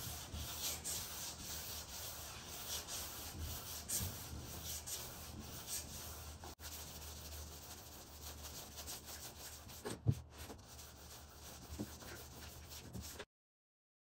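Hand block-sanding the primed fiberglass surface of an aircraft engine nacelle: repeated rasping strokes of abrasive paper on primer. The sound cuts off suddenly near the end.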